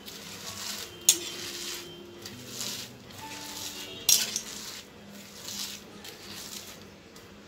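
A hand kneads finely chopped cabbage with spice powders on a stainless steel plate. The wet shreds rustle and squish in repeated strokes, with two sharp clinks against the steel plate, about a second in and about four seconds in.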